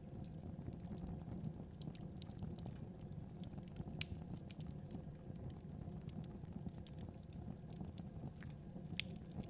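Wood fire crackling: a steady low rumble of burning with scattered sharp pops and snaps, a louder pop about four seconds in and another near the end.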